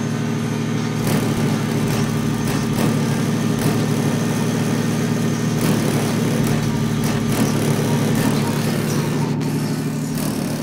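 Heavy bass music from two 18-inch Obsidian subwoofers, driven by a Belva BB5000 amplifier, playing loud and steady as heard from outside the truck.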